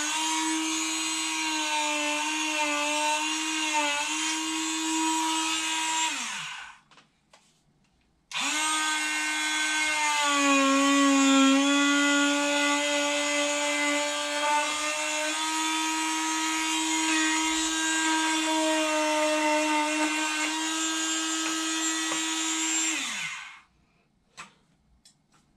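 Small handheld electric power tool cutting into a hardened cast sock, its motor whining steadily. It runs, stops for a moment and starts again, its pitch dropping briefly under load soon after, then winds down near the end.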